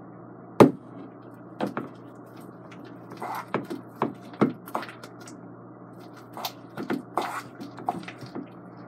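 Metal spoon knocking and scraping against a stainless-steel mixing bowl while stirring thick homemade slime, in irregular clicks and knocks, the loudest about half a second in. The slime is thickening and getting harder to stir.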